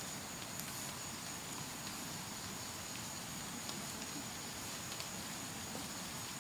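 Faint outdoor background hiss with a thin, steady high-pitched whine and a few faint ticks.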